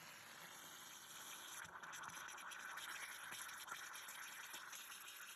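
Faint, steady scratchy hiss with many small ticks from clearing a clogged refrigerator defrost drain. It grows a little louder about two seconds in.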